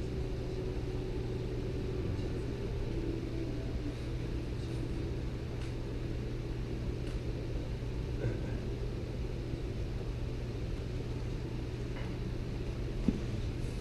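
A steady low hum and rumble, with a few faint light clicks scattered through it.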